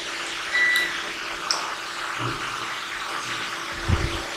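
Steady hiss of background room noise with a faint low hum, a brief high beep about half a second in, and two soft low knocks near the end.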